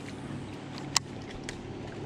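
Boat's electric trolling motor humming steadily at a low pitch, with a sharp click about a second in and a fainter click half a second later.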